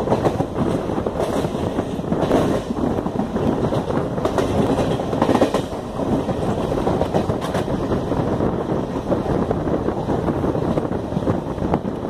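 Passenger train coach running at speed, heard from an open doorway: a steady rumble of wheels on rails with a clack from the rail joints now and then.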